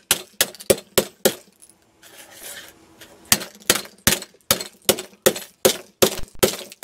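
A hammer striking a plastic digital TV decoder box again and again, cracking its case open. There are five quick blows, a short pause with faint rustling, then about ten more blows at roughly three a second.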